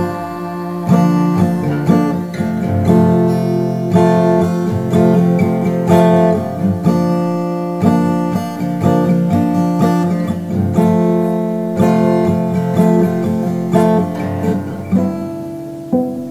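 Instrumental passage of a song: acoustic guitar strumming chords about once a second, with no singing.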